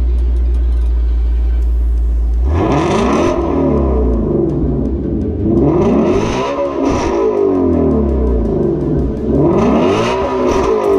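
5.2-litre flat-plane-crank V8 of a Ford Mustang Shelby GT350 idling, then revved three times starting about two and a half seconds in; each rev rises and falls in pitch.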